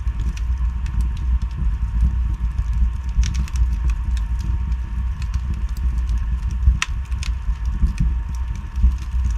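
Wood fire burning in a fireplace: a steady low rumble of the flames with scattered crackles and pops from the logs, one sharper pop about two-thirds of the way through.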